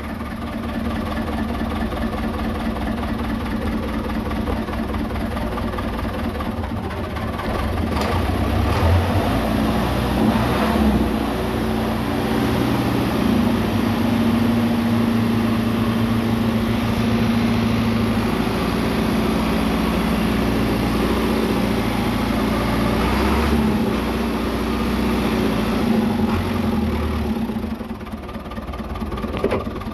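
Ford 10-series tractor engine running steadily at idle after a cold start. It gets a little louder about eight seconds in and dips briefly near the end.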